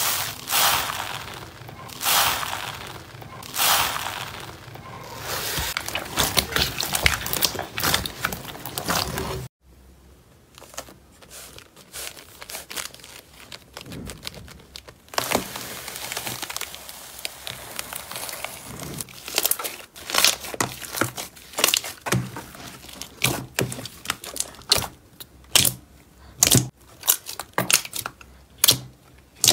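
Hand-made ASMR handling sounds: a hand pressing and sweeping through a bowl of small foam beads, rustling in several swells; after a sudden cut, quieter crinkling of paper over a container; then a string of sharp pops and clicks from fingers squeezing thick slime.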